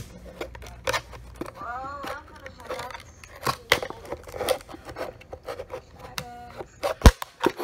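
Scissors clicking and snipping at plastic cable ties on a cardboard backing, in a run of short sharp clicks with a louder sharp snap about seven seconds in.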